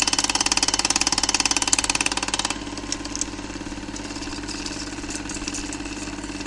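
A Super 8 film projector running: a fast, even mechanical clatter over a steady hum. It turns quieter and duller about two and a half seconds in.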